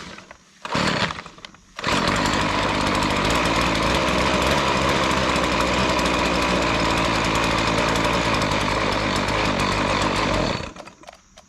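Small two-stroke lawn edger engine being pull-started on full choke: two short bursts from the starter pulls, then it fires up about two seconds in and runs steadily for about nine seconds. It then dies suddenly as the choke is taken off and throttle given, a sign of a lean or misadjusted carburettor.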